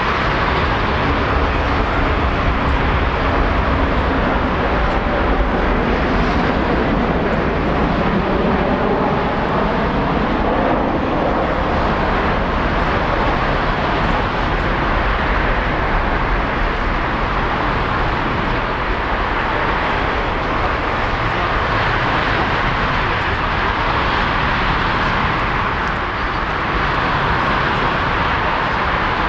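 Jet engine noise from a Boeing 777-300ER moving along the airport ground: a steady rushing sound, with a faint low hum over roughly the first ten seconds.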